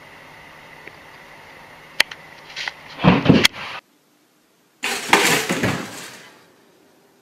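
A steady hiss with a sharp click, then a loud clatter; after a moment of silence a pop-up toaster springs up with a sudden loud clack, followed by noise of a cat scrambling that fades out over about a second and a half.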